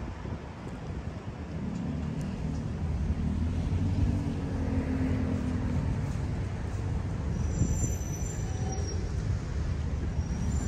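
Steady low rumble of road traffic with wind buffeting the microphone.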